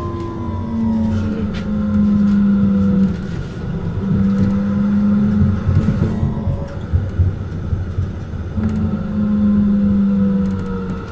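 Frankfurt S-Wagen tram (Bombardier Flexity Swift, car 202) standing at the stop with its newly fitted power inverter humming. A steady electric hum switches on and off in three stretches over a higher whine, and a falling whine fades out about a second in.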